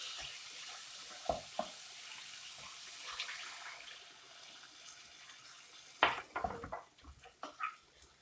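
A cup of water poured into a pan of frying chicken masala, a steady watery hiss that slowly fades over about five seconds. About six seconds in, a quick run of knocks and clatters follows.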